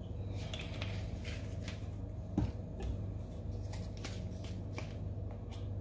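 Irregular light scrapes and clicks of utensils and containers being handled while mixing a scrub, over a steady low hum, with one louder knock about halfway through.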